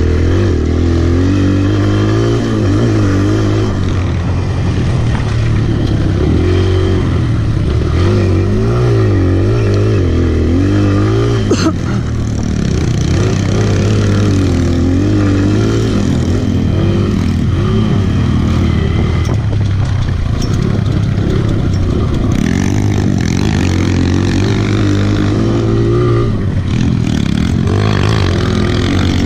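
Small Kawasaki KLX pit bike's four-stroke single-cylinder engine, heard close up from on the bike, its pitch rising and falling again and again as the throttle is worked through the turns. A single sharp knock comes near the middle.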